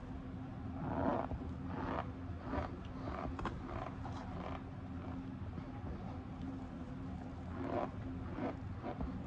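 Cornstarch crunching and squeaking as a gloved hand squeezes and crumbles handfuls of it in a glass bowl: a run of soft crunches, a lull in the middle, then a few more near the end, over a steady low hum.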